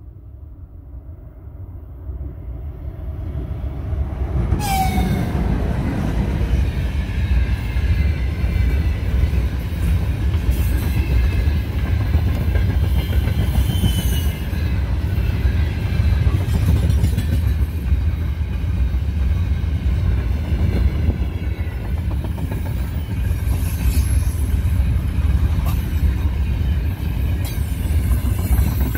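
A freight train hauled by two coupled 2ES6 electric locomotives approaches with a rising rumble. The locomotives pass close by about four and a half seconds in with a brief falling whine. A long string of open freight wagons then rolls past with a steady heavy rumble and clatter and faint high wheel squeals.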